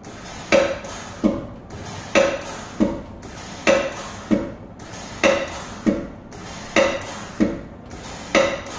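Hydro-pneumatic press cylinder cycled through its approach stroke over and over, about five down-and-up cycles at a steady pace. Each stroke gives a sharp clack trailing into a short hiss. The cylinder is being cycled after oil topping to work trapped air up out of the oil.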